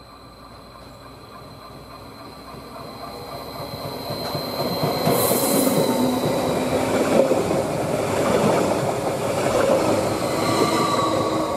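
Stadler FLIRT electric multiple unit approaching and passing close by. Its wheels on the rails and a steady electric whine grow from faint to loud over the first five seconds. A brief rush of air comes as the front end goes past, and the sound stays loud while the carriages run by.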